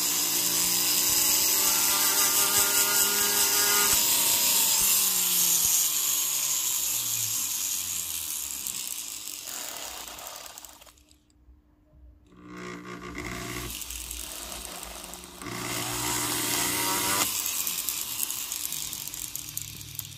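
Flex shaft rotary tool running with a sanding disc, grinding a lapis inlay down flush with a gold ring. Its whine slides down in pitch and stops about eleven seconds in. It starts again a second or so later and runs at changing speed.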